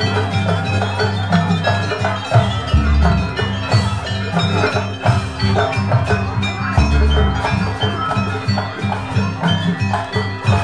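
Live jaranan ensemble music: a steady rhythm of deep drum strokes under fast repeated notes from tuned metal percussion, played throughout.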